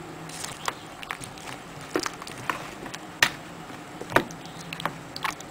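A spoon stirring curry in a bowl, with irregular clicks and knocks as it strikes the bowl, the two loudest about three and four seconds in.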